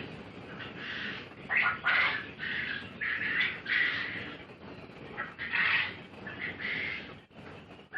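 Quail calling, a string of short repeated chirping calls.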